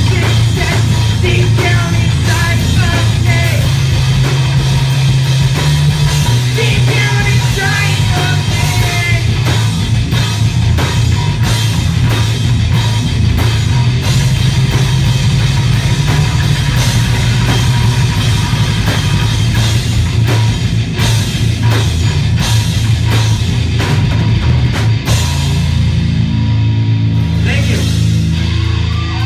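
Heavy metal band playing live at full volume: distorted electric guitars, bass guitar and fast, dense drumming. Near the end the drums stop and a held chord rings on.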